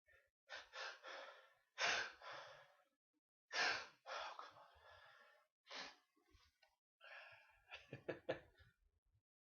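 A person in a sneezing fit: a run of about five sharp, breathy gasps and sneeze bursts, the loudest about two and three and a half seconds in.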